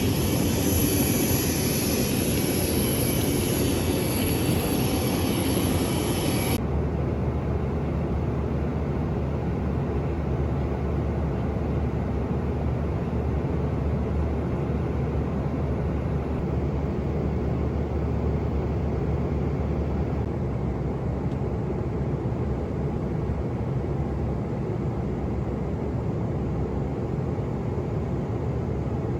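Steady airliner cabin noise from the jet engines and airflow. About six and a half seconds in it changes abruptly, losing its high whine and leaving a steady low rumble.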